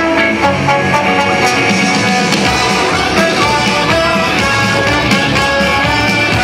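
Loud rock-style music with guitar and a steady beat, playing without a break.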